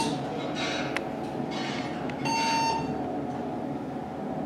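Steady rumbling hum inside a 1992 Montgomery traction elevator cab, with a short electronic beep from the elevator about two seconds in and another starting as it ends.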